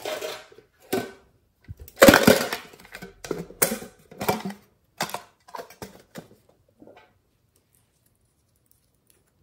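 A small tin box handled and opened: a run of irregular clicks, clacks and rustles from its lid and body, loudest about two seconds in, stopping about seven seconds in.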